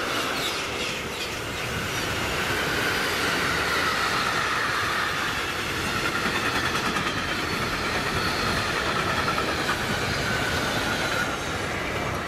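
Freight train of covered hopper and sliding-wall goods wagons rolling past at speed: a steady rolling rumble with a rapid, regular clatter of wheels over the rails. The sound drops about eleven seconds in as the last wagon passes.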